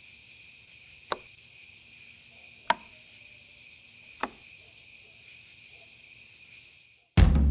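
Night ambience of crickets chirping steadily. Three sharp knocks fall about a second and a half apart. Loud drum-led music starts right at the end.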